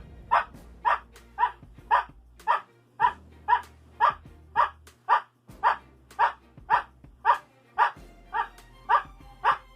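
Siberian husky barking in a long, even series of single barks, about two a second, roughly nineteen in all, counting out a number on cue.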